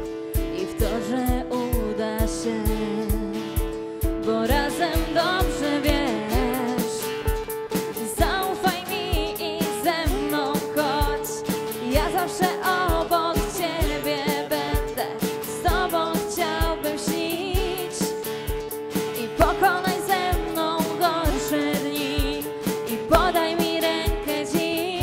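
Pop song played by a small band: a female singer over electric guitar, keyboard chords and a steady drum beat. The keyboard holds chords at first, and the singing comes in about four seconds in.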